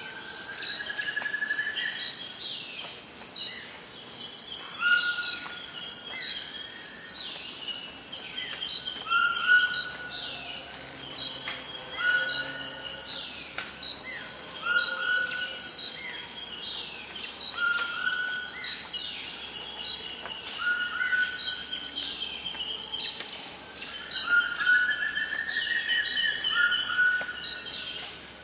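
Toucans calling in tropical forest, a short call about every two seconds with other chirping calls among them, over a steady high insect drone.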